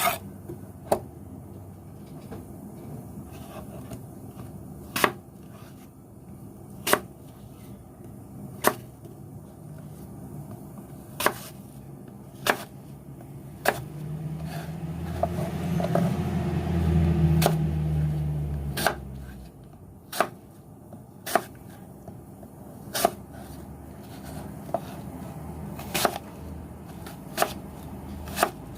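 Knife chopping on a cutting board, single sharp knocks about every one to two seconds. A low hum swells and fades in the middle.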